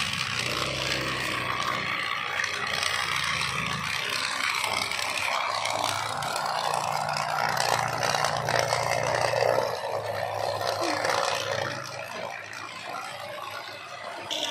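Battery-powered toy trains running on plastic track: a steady whir of small electric motors with the wheels rattling along the rails, a little quieter for the last couple of seconds.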